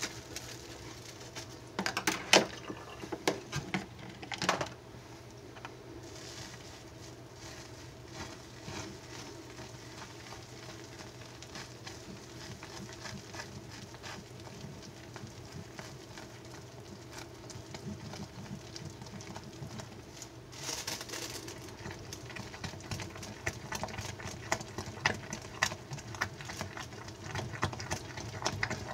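Plastic cling wrap crinkling as it is peeled back off a bowl of hot process soap, then a spatula stirring and scraping the thick, cooked soap paste in the bowl with soft squishing sounds.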